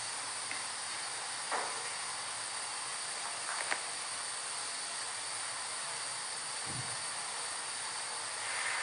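Steady hiss of background noise in a quiet room, with a few faint short sounds about a second and a half, three and a half, and near seven seconds in.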